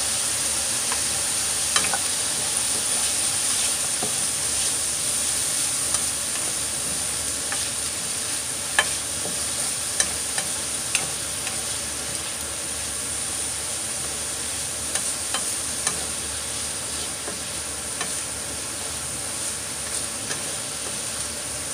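Ground beef and sliced onion sizzling in a frying pan as they are stirred, a steady frying hiss. Scattered sharp clicks of the spatula against the pan, the loudest about nine seconds in.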